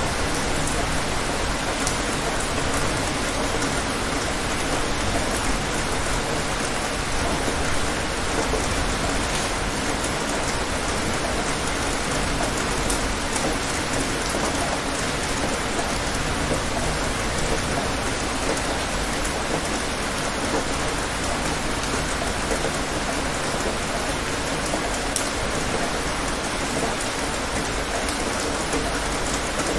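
Steady, fairly heavy rain falling on a surface, with occasional sharper drop ticks standing out.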